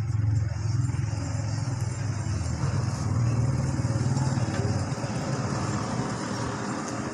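A motor vehicle engine running nearby, a steady low drone that drops away about five seconds in, leaving a softer background hum.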